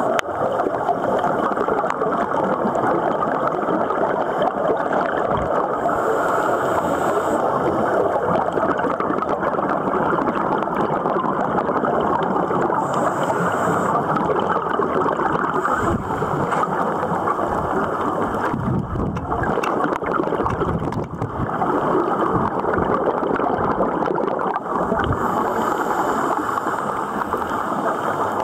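Underwater sound picked up through a diving camera's housing: a steady rushing, gurgling water noise, with a few brief higher hisses.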